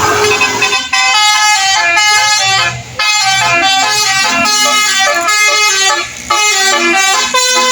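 Basuri multi-tone vehicle horn playing a fast melody of short stepped notes, with brief breaks about three seconds and six seconds in.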